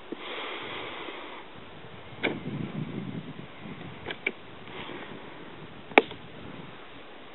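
Outdoor background hiss with a few knocks and sharp clicks, the loudest a single sharp click about six seconds in, and a brief low rumble a couple of seconds in.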